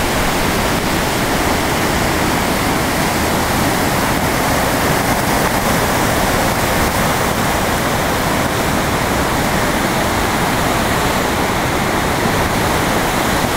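River rapids running high: a loud, steady rush of churning whitewater.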